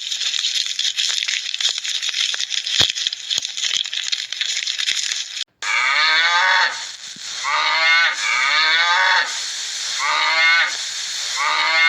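A steady crackling hiss for about five seconds, then a cow mooing four or five times in quick succession, each call about a second long.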